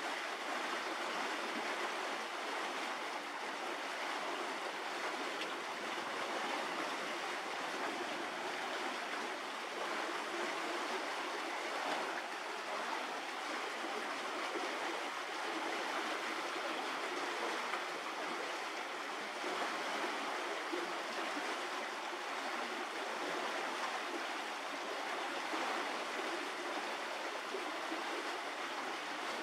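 Steady, even rushing hiss with no distinct events, a water-like noise that holds at the same level throughout.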